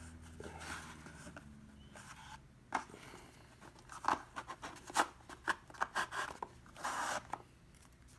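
Sealed trading card box being opened by hand: a run of sharp snips, crackles and short rips of its plastic wrap and cardboard, starting a few seconds in, with a longer tearing sound near the end.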